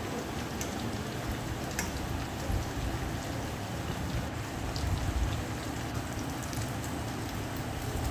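Corn pakoras deep-frying in hot oil in a kadhai: steady sizzling with scattered small crackles.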